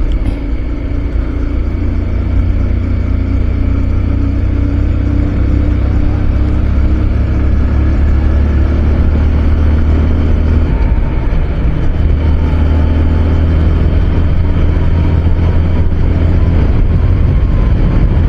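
Motorcycle engine and wind noise on a handlebar-mounted action camera's built-in mic as the bike accelerates from about 45 to 65 km/h, a steady low rumble growing gradually louder.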